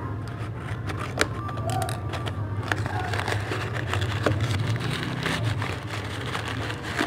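Scissors snipping open a taped paper parcel, then crumpled paper packing crinkling and rustling as it is pulled out by hand, with sharp clicks and crackles scattered through.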